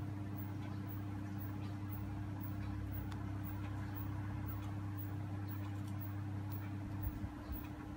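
A steady low hum, with faint light ticks now and then.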